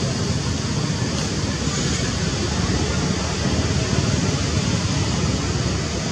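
Steady outdoor background noise: a constant low rumble under a high hiss, with no distinct calls or knocks.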